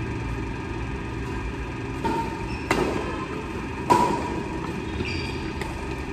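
Badminton rackets smacking a shuttlecock in a rally: sharp hits midway, two of them about a second apart, the second the loudest, over a steady low background rumble.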